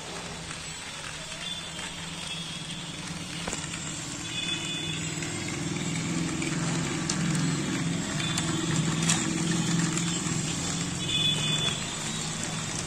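Battery-powered plastic toy trains running on plastic track: small electric motors whirring and wheels rattling over the track joints, louder from about four seconds in, with a few light clicks.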